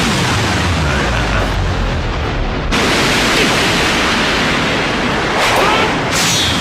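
Loud, continuous rushing and rumbling sound effects of a sword fight in a martial-arts drama: a deep rumble through the first half, then a hissier surge about three seconds in.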